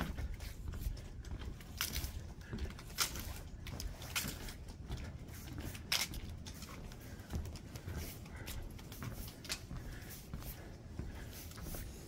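Footsteps on a wooden boardwalk: irregular crunching and clicking steps over a low rumble.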